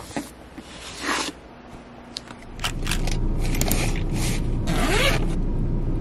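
Light scraping and clicking of objects being handled. About two and a half seconds in, this gives way to the steady low hum of a car's cabin, with short zipper-like scrapes and rustles close to the microphone.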